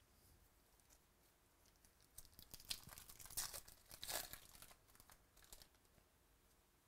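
A 2018 Bowman Baseball trading-card pack's shiny foil wrapper being torn open and crinkled by hand: a run of crackling tears and rustles starting about two seconds in and lasting around three seconds.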